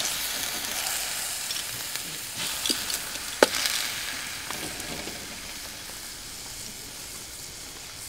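Meat sizzling in a freshly seasoned iron paella pan over a wood fire, the sizzle slowly dying down, with a single sharp click about three and a half seconds in.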